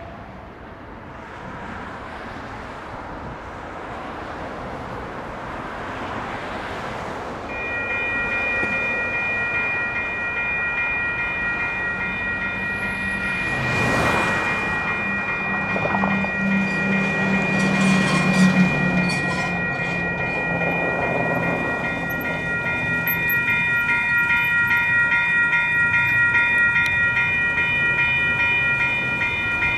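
Road traffic passing, then about seven seconds in the railroad crossing's WCH electronic bells start ringing: a rapid, steady electronic ding that keeps going as the crossing activates for an approaching train. Partway through, a heavy vehicle drives by with a low engine hum.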